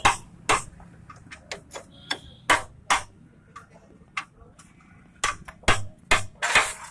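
Sharp metal clicks and knocks, a dozen or so at irregular spacing, one ringing briefly about two seconds in. They come from a steel leaf-spring shackle plate and bolts of a Mahindra Bolero pickup being worked into place by hand.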